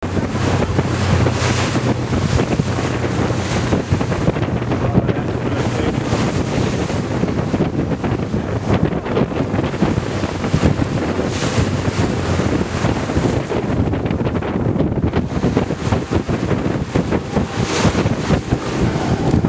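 Wind buffeting the microphone in gusts on a boat at sea, over water noise and a steady low hum from the vessel's engine.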